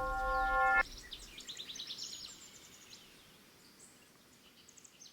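A held musical note cuts off sharply under a second in, and birds chirp in quick trills that fade over the next couple of seconds, with a few fainter chirps near the end.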